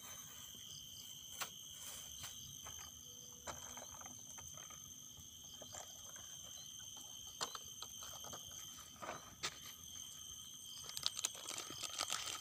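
Insects chirring steadily at a high pitch, with scattered soft clicks and rustles close by that come more often near the end.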